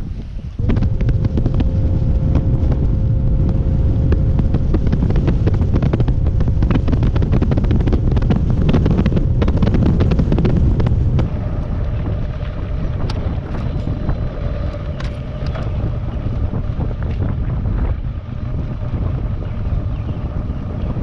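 An engine running steadily under heavy wind buffeting on the microphone. Its note steps up slightly and the rumble eases about halfway through.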